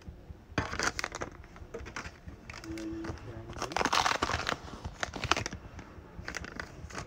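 Foil booster pack wrapper crinkling and tearing as a Pokémon card pack is opened, in several bursts of rustling.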